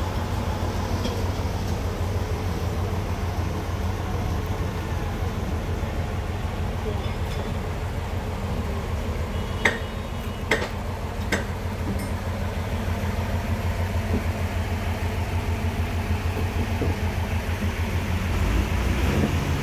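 Engine idling steadily with an even low pulse, with three sharp knocks about halfway through.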